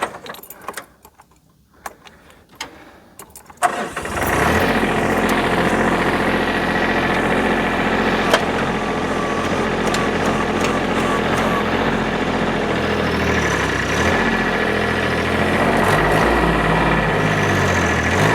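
A few light clicks and knocks, then about three and a half seconds in a tractor engine starts and runs steadily.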